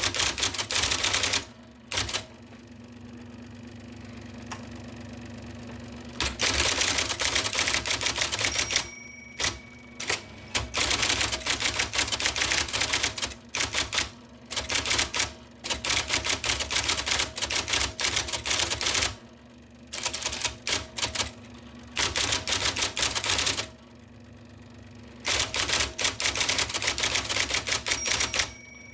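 1979 IBM Selectric II electric typewriter typing in quick runs, the type ball striking the paper many times a second. Between runs, including a pause of about four seconds near the start and another near the end, only the steady hum of its running motor is heard.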